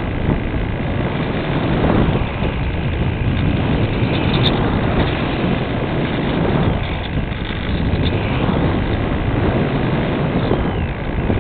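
Airflow rushing over the onboard camera's microphone on a Multiplex Cularis RC glider in flight: a loud, steady noisy rush that swells and eases as the plane banks.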